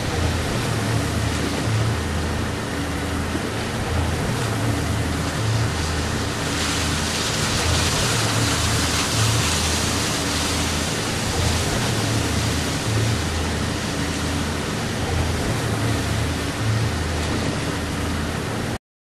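A powerboat running at speed through rough seas: a steady low engine hum that rises and falls, under a loud wash of wind and rushing water that swells for a few seconds about a third of the way in. It cuts off suddenly near the end.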